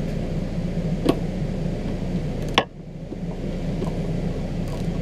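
A ratchet and socket working on a car's wiper-arm retaining nut, giving a sharp metallic click about a second in and a louder one about halfway through, over a steady low hum.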